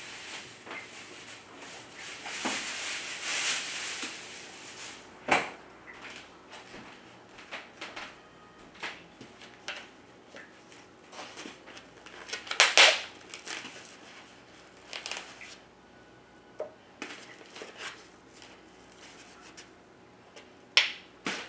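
Kitchen food-prep handling sounds: a stretch of rustling, then scattered clicks and sharp knocks of utensils and dishes being handled and set down. The sharpest knocks come about five, thirteen and twenty-one seconds in.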